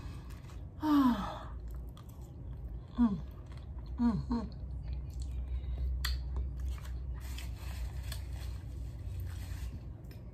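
A person chewing and crunching a mouthful of tortilla-chip nachos, with small crackles and clicks throughout. Three or four short hums fall in pitch, near 1 s, 3 s and 4 s.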